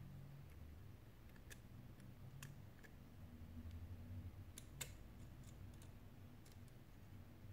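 Faint, scattered clicks and taps as the plastic frame and glass panel of a disassembled Sony Xperia Z5 Compact are handled and fitted together, about seven in all, the loudest a quick pair about five seconds in, over a low steady hum.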